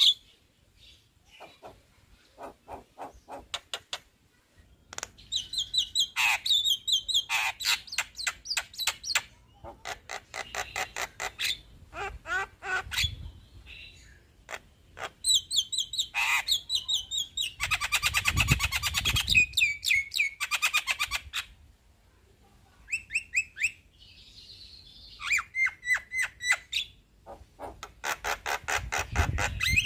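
Male Javan myna (jalak kebo) in full song: phrases of fast, rapidly repeated notes and whistled chirps, a few seconds each with short pauses between, the longest and densest roll about two-thirds of the way through.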